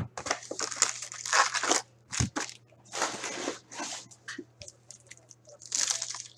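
Foil wrappers of 2018-19 Upper Deck Ice hockey card packs crinkling and rustling in the hands as the box is opened and the packs are handled. There is a short thump about two seconds in as something is set down on the table.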